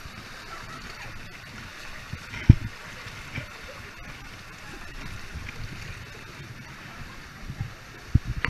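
Water rushing and gurgling in a canyon pool fed by a small cascade. About two and a half seconds in there is one sharp low thump as the camera wearer drops into the water, and a few smaller knocks and splashes come near the end.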